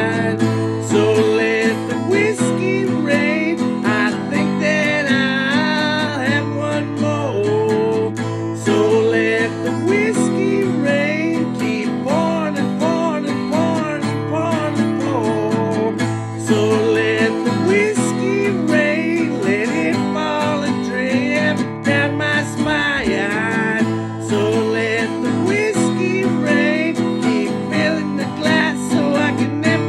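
Acoustic guitar playing an instrumental break in a slow country song, with a wavering melody line bending over the steady chords.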